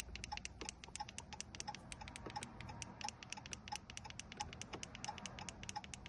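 Rapid, even electronic ticking, about eight ticks a second, with a faint short beep about three times a second.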